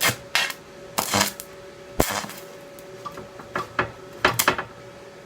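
Stick welder's cast steel electrode, run at a low 44 amps on thin chair metal, striking the arc in short irregular crackling bursts. The arc catches and dies several times as the rod keeps sticking. A steady faint hum sits beneath.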